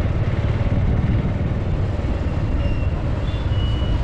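Steady low rumble of a road vehicle on the move, heard from on board.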